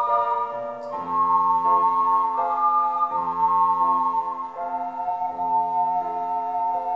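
Ocarinas playing a slow hymn melody in held notes over a keyboard accompaniment with organ-like chords and a bass line.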